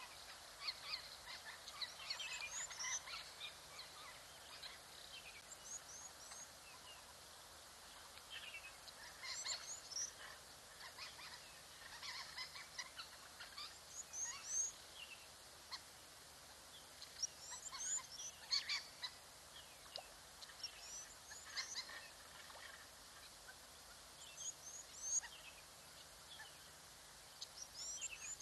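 Wild birds calling in the bush: many short high chirps and quick falling notes in loose clusters every few seconds, over a faint steady background hiss.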